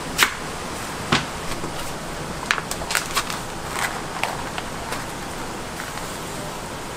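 Food being prepared by hand: scattered sharp clicks and knocks of a wooden cutting board and steel trays being handled, most of them in the first five seconds, over a steady background hiss.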